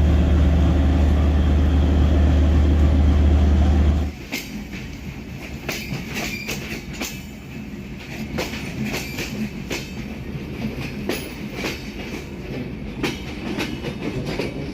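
A diesel locomotive's engine running with a loud, steady low drone. About four seconds in it cuts off suddenly, and train wheels clicking irregularly over rail joints as coaches pass take its place.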